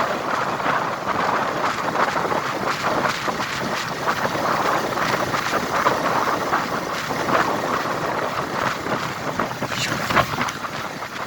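Steady rushing wind noise on the microphone over the sound of a moving vehicle on the road.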